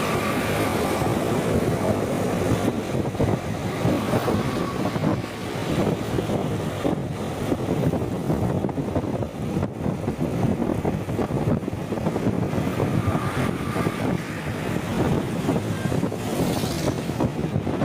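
Steady rumbling wind and vehicle noise picked up by a motorcycle rider's microphone while riding, loud enough to drown out the rider's voice.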